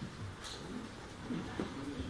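Faint, indistinct voices of a packed crowd of men murmuring, with no clear words.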